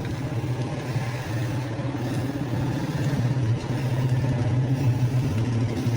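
Steady low hum of a running engine or motor, a little louder in the second half.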